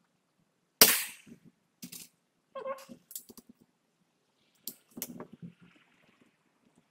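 BRK Ghost PCP air rifle firing one shot, a sharp report about a second in, followed by several clicks and rattles as the side lever is cycled and the next pellet is loaded.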